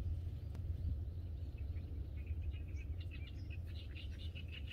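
Small birds chirping in quick runs of short high notes, becoming steady from about two seconds in, over a steady low background rumble.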